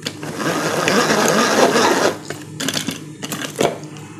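Hand-cranked plastic food chopper whirring for about two seconds as its blades spin through celery. A few sharp plastic clicks and knocks follow as the lid is taken off the bowl.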